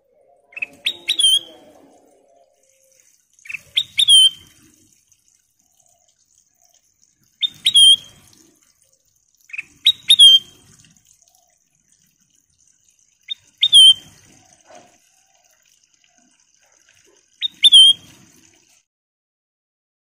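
Caged kutilang emas bulbul singing short whistled phrases, six of them a few seconds apart, each a quick lead-in note and then a note that rises and falls.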